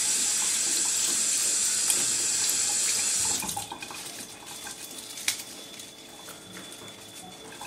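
Kitchen tap running, a steady splashing hiss of water, likely over leaves being rinsed, shut off about three and a half seconds in. A single sharp click follows about five seconds in.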